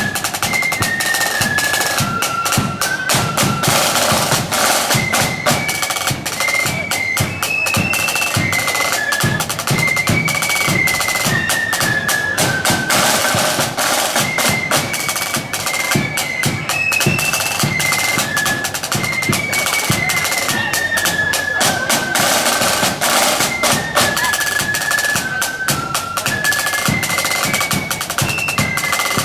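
Marching band playing a tune: a high-pitched wind melody over rapid snare drumming and bass drum beats, with no break.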